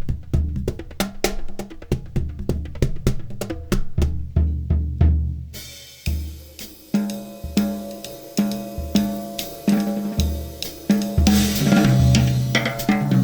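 Percussion music: rapid drum and wood strikes with low drum hits, changing about six seconds in to a steady beat of low drum hits about twice a second under a sustained tone, with a cymbal swell near the end.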